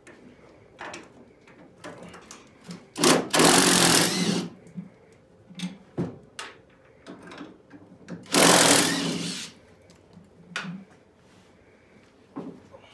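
Cordless impact driver run in two bursts of about a second and a half each, some three seconds in and again near nine seconds, backing out the door hinge bolts so the door can come off. Light knocks and clicks of the door and tools being handled come between the bursts.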